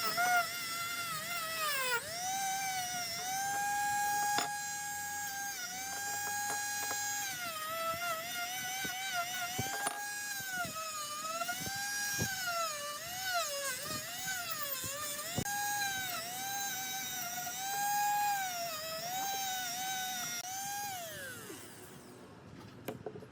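Small high-speed electric rotary tool whining, its pitch dipping and recovering over and over as it is pressed against the work, then winding down with a falling pitch near the end.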